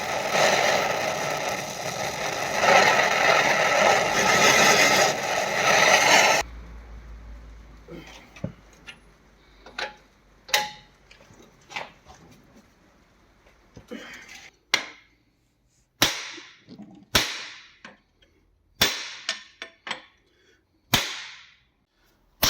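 A loud steady rushing noise from a power tool or air stops suddenly about six seconds in. It is followed by about nine sharp, irregularly spaced hammer blows on metal that ring briefly, as truck leaf-spring suspension parts are knocked loose.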